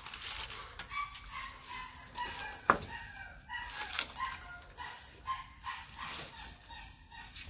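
Chickens clucking, in short repeated calls, over the crinkle and rustle of dry, charred banana leaves being peeled from a clay-baked chicken, with one sharp click about two and a half seconds in.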